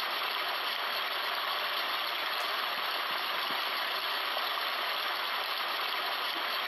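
Steady, even rushing hiss from a portable white-noise sound machine left running.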